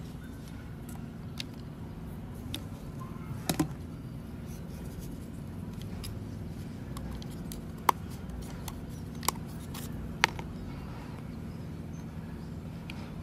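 Handling noise from an angle grinder's plastic motor housing and loose parts: a few sharp clicks and light knocks, a double knock about three and a half seconds in and three single clicks later on, over a steady low hum.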